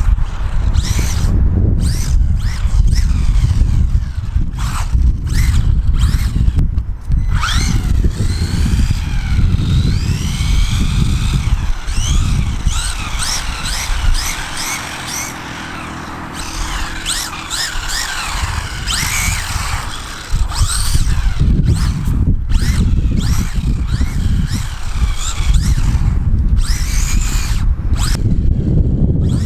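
WLtoys A959-B RC buggy's electric motor whining, its pitch rising and falling again and again as the throttle is worked, over a heavy rumble of wind on the microphone; it drops back for a few seconds around the middle.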